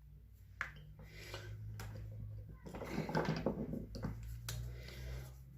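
Hands working on a vacuum cleaner's wiring and parts: scattered clicks, knocks and rustling, with a faint steady low hum underneath.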